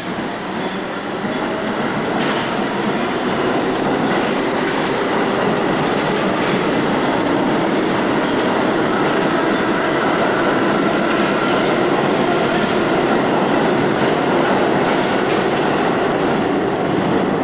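New York City subway train running through an underground station without stopping: a steady, loud rumble and clatter of wheels on rail that holds as the cars go past.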